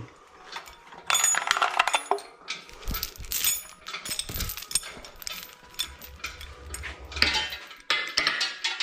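Repeated light metallic clinks and clanks of metal tools and hardware knocking against metal, scattered irregularly.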